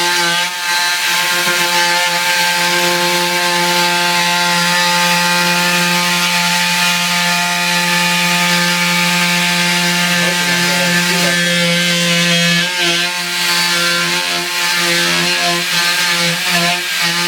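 Power tool motor running steadily with an even pitched whine as it cuts into drywall; the pitch wavers and dips briefly about two-thirds of the way through, as the tool takes load.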